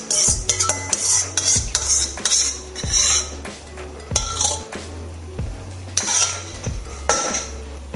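A utensil stirring and scraping around the bottom of a pan of thick ketchup-based barbecue sauce, in irregular strokes about every half second to second. A low, steady bass line from background music runs underneath.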